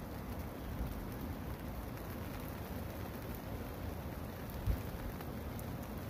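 Steady rain falling, with scattered drops and a low rumble underneath; a single brief low thump about three-quarters of the way in.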